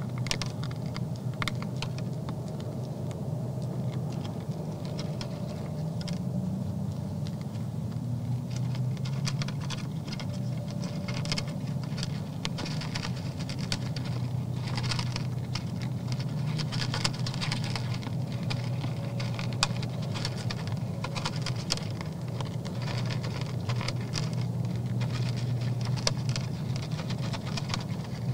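Whitetail buck eating from a feed trough close to the microphone: a quick, irregular run of small crunches and clicks as he nuzzles and chews the feed. A steady low hum runs underneath.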